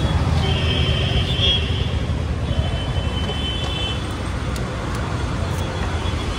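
Yamaha motorcycle engine idling with a steady low rumble while the bike is being parked. A thin high tone sounds twice in the first half.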